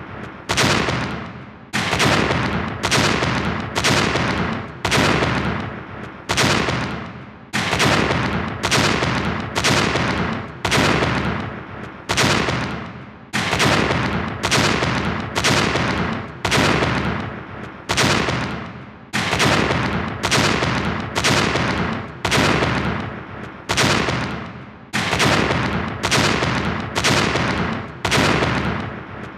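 A film explosion sound effect for a head being blown up, played on a tight loop: a sudden bang that fades away, restarting about every 0.7 seconds, each one cut off by the next.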